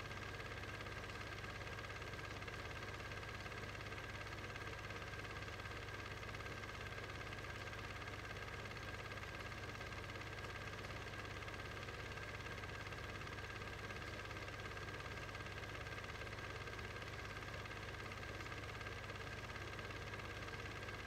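Steady low hum and hiss that does not change at all. No car passing or revving can be heard; Standard 8 home movies were normally shot silent, so this is the transfer's background noise, not the race.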